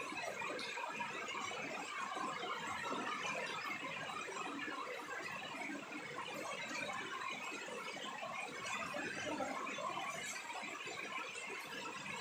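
Steady rain falling on a wet concrete rooftop, an even, unbroken patter.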